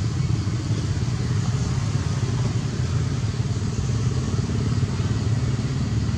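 A steady low rumble of an engine running, holding even throughout.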